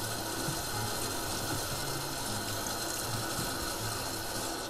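Kitchen tap running steadily, its stream splashing over a peeled boiled egg held under it and through a wire-mesh strainer into a stainless steel sink.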